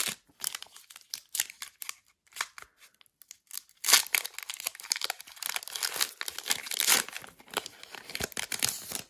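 Foil wrapper of a Pokémon TCG booster pack crinkling in the hands with scattered crackles, then torn open and crinkling densely and loudly from about four seconds in.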